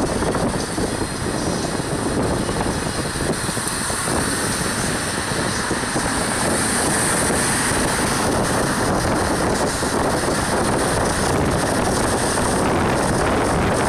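Steady rushing noise of a vehicle driving along a road, tyre and engine noise mixed with wind over the phone's microphone.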